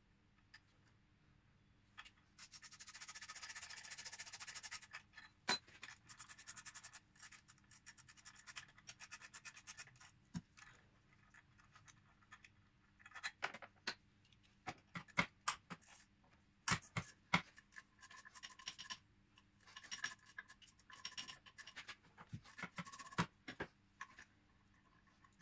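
Ratchet wrench clicking in fast runs as engine mount bolts are undone, followed by scattered sharp knocks and metallic clinks of tools and loosened bolts being handled.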